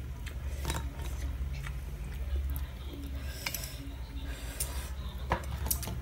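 A person eating fried fish with their fingers: chewing, with scattered short sharp clicks, over a low steady hum.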